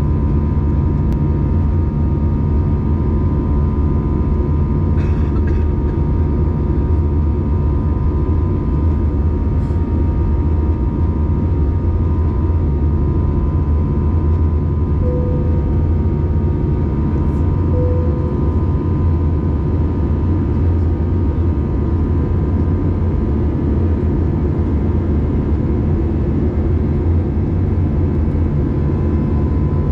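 Steady in-cabin drone of an Airbus A320 in flight, from a seat over the wing: engine and airflow noise with a faint steady hum. Two brief tones at the same pitch sound about three seconds apart, about halfway through.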